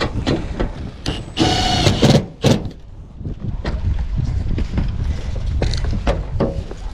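Wind buffeting the microphone, with scattered knocks and scrapes of handling on metal roofing. A short, loud whirring burst about one and a half seconds in, and a shorter one about a second later.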